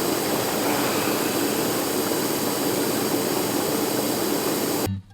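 A steady, loud rushing noise that cuts off suddenly near the end.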